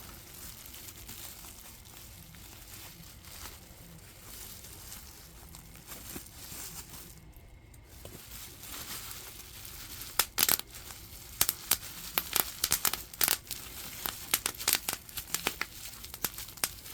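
Bubble wrap being handled and unwrapped, with plastic crinkling softly at first. About ten seconds in come a run of sharp crackles and clicks.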